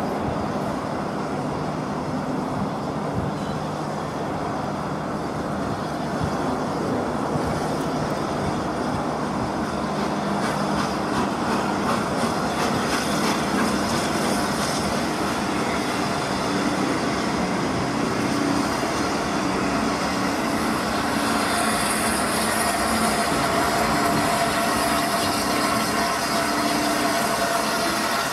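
Peppercorn A1 steam locomotive 60163 Tornado and its coaches running slowly into a station, a steady rumble of wheels on rail that grows somewhat louder as the train draws closer.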